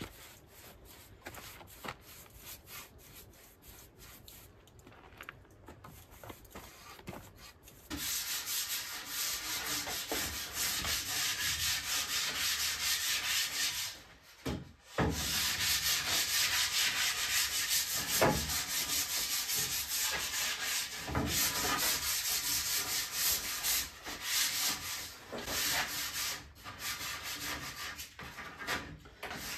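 Sandpaper rubbing along varnished wooden oar shafts by hand: steady sanding strokes with short pauses, scuff-sanding the polyurethane between coats. The first several seconds are much quieter, before the sanding starts.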